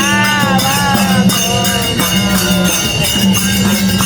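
Background music: a melody with gliding notes about a second in, over bass notes that change every second or so.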